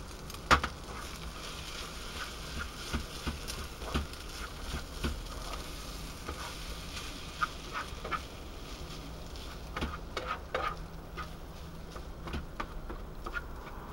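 Rice and sausage frying in a pan on a portable gas stove, with a spoon stirring and scraping the pan in a run of short clicks. A sharp clank about half a second in is the loudest sound.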